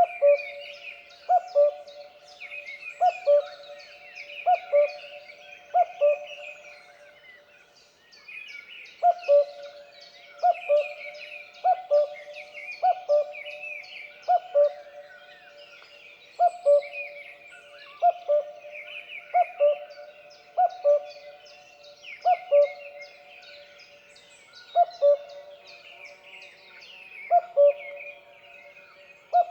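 Common cuckoo calling its two-note "cuck-oo" again and again, the first note higher, about one call every one and a half seconds with a pause of a few seconds about a quarter of the way in. A busy chorus of small birds chirps and twitters underneath.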